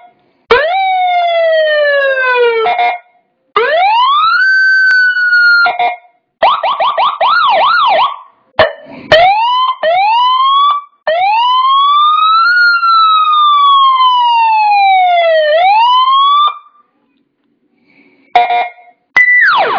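Electronic siren module stepping through its programmed siren tones, with short gaps between them. First comes a falling sweep, then a rise that holds high, a fast warble, a few quick rising chirps, and near the end a long slow wail that rises and falls.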